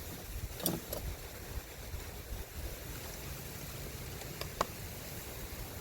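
Wind buffeting the microphone as a low, uneven rumble, with a couple of light knocks about a second in and again near the end.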